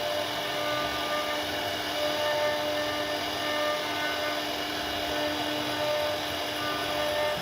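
CNC router spindle cutting into wood: a steady whine with a spread of cutting hiss, its pitch lines dropping in and out as the bit moves through the carving.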